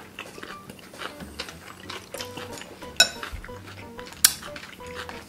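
Chopsticks clicking and tapping against glass bowls while eating noodles, with two sharper clinks about three and four seconds in. Quiet background music plays underneath.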